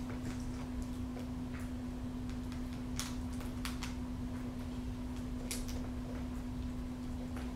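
Peregrine falcon tearing and picking at quail meat with its beak: irregular small clicks and snaps of flesh and bone, a few sharper ones midway. A steady low hum runs underneath.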